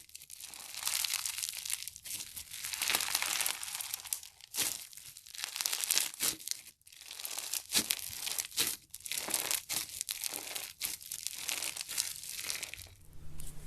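Crunchy slime being worked by hand, giving dense, irregular crackling and crunching in bursts with short pauses between. Near the end the crackling stops and a low steady hum is left.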